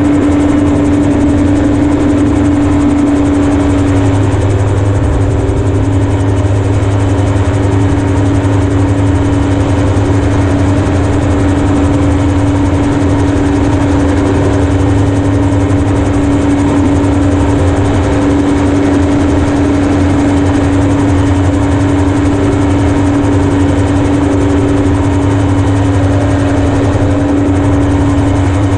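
Single-seat amphibious gyroplane's Yamaha RX-1 four-cylinder four-stroke engine driving its pusher propeller, running steadily with a strong, even hum and the rotor turning.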